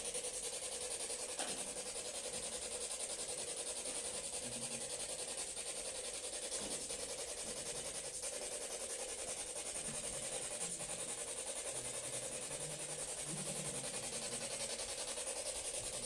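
Steady background hiss with a constant faint hum, and a few faint, indistinct low sounds scattered through it.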